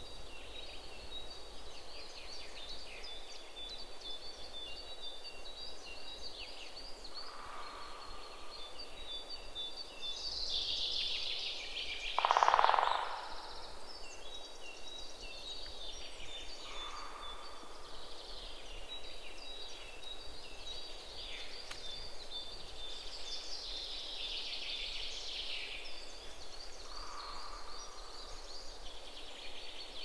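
Forest birdsong: several birds chirping and trilling in high notes throughout, with a short, lower call repeating about every ten seconds. About twelve seconds in, a brief, louder, lower-pitched sound stands out above the rest.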